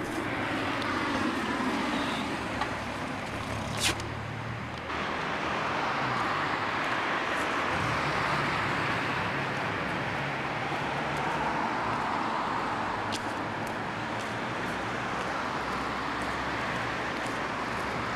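Steady city street traffic noise from passing cars, with a single sharp click about four seconds in.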